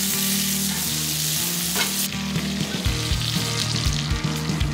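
Pieces of pheasant sizzling as they fry in a pan on a small tailgate grill; the hiss cuts off about two seconds in. Background music with a low, stepping bass line runs underneath and comes up stronger in the second half.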